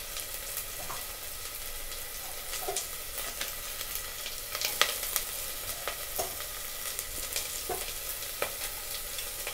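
Diced carrots, sliced onions and green chillies sizzling in hot oil in a stainless steel pot, a steady hiss with scattered sharp ticks.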